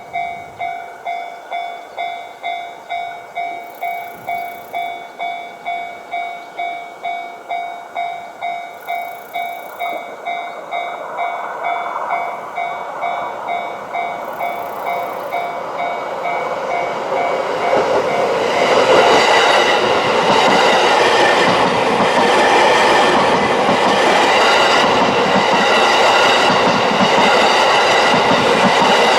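Japanese railway level-crossing alarm ringing its repeating electronic ding, about two to three strokes a second, while a JR Narita Line train draws near. About two-thirds of the way through, the train passes close by and its wheels clatter over the rail joints, drowning out the bell.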